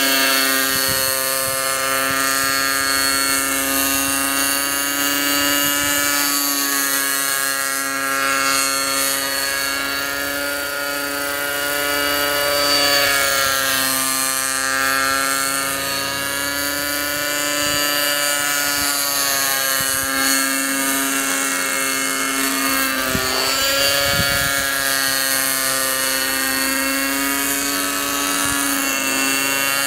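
Hawkpro 32 radio-controlled model helicopter in flight. Its engine and rotors run as a steady tone whose pitch rises and falls slightly as it manoeuvres.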